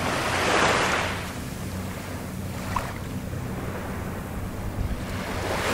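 Small waves washing onto a sandy beach, with a louder wash about half a second in and another building near the end, over a steady low rumble.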